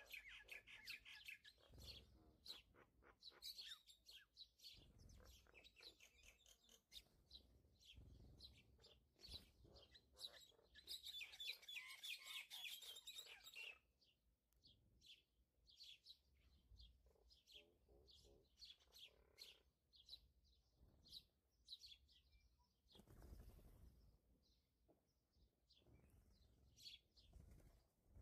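Small birds chirping and twittering, with a dense, fast run of chirps near the middle. Faint soft thuds of a knife on a plastic cutting board come now and then.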